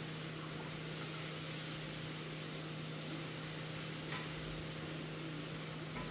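Steady hiss with a low, even hum underneath: background noise of a home recording, with one faint click about four seconds in.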